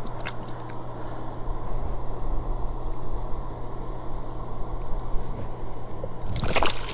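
Steady low outdoor rushing noise with a constant low hum underneath. Near the end comes a brief clatter of pliers and a metal spoon lure as a small hybrid striped bass is unhooked.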